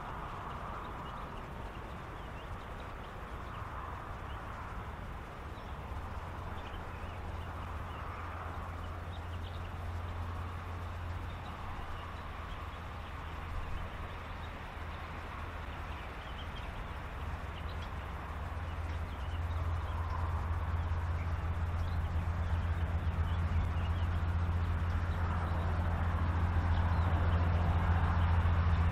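Animal calls repeat every few seconds from a reed bed. Under them a low, steady motor hum grows louder through the second half.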